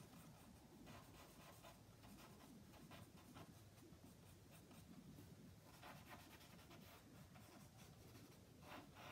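Faint scratching of a willow charcoal stick drawn across cartridge paper in short strokes.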